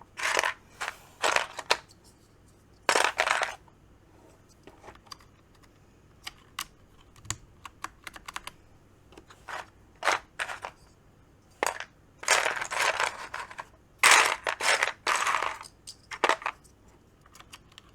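Plastic keycaps clicking and clattering on a mechanical keyboard as they are handled and swapped: scattered sharp clicks with several short rattling bursts.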